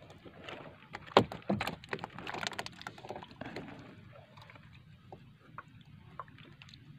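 A few sharp knocks on the wooden outrigger boat about a second in, then water splashing and sloshing as a net basket hanging in the water at the boat's side is handled, with faint small clicks afterwards.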